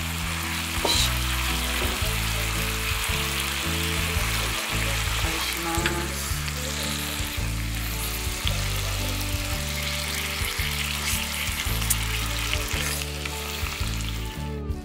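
Food sizzling steadily on a hot dish at the dinner table, over background music with a steady, stepping bass line.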